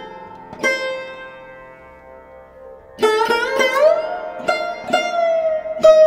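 Background music on a plucked string instrument with bending notes. One note rings out and fades for about two seconds, then a quicker run of plucked notes begins about three seconds in.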